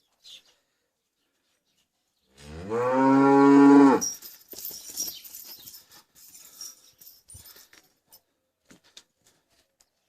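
A male calf mooing once, a loud call of about a second and a half that rises in pitch as it starts, followed by faint rustling and small knocks.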